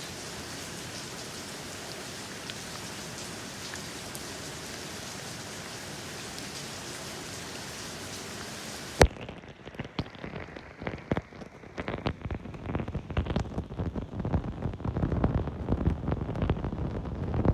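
Steady rain falling, an even hiss, for about the first nine seconds. Then a sudden cut with a sharp click, after which the sound turns duller: irregular pattering knocks and a low rumble that grow louder toward the end.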